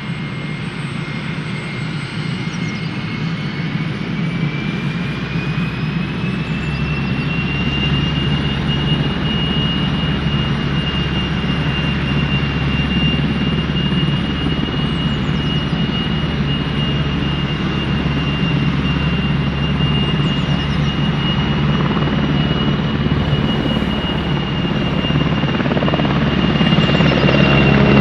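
PZL W-3A Sokol helicopter's twin turboshaft engines and rotor running up for takeoff. A turbine whine rises in pitch over the first several seconds and then holds steady under the rotor noise. The sound grows louder near the end as the helicopter lifts off into a hover.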